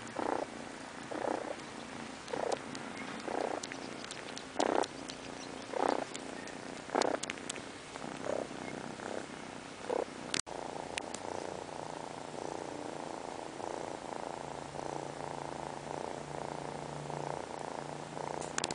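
Drowsy kitten purring, swelling in pulses about once a second with its breathing, then a steadier purr for the last several seconds.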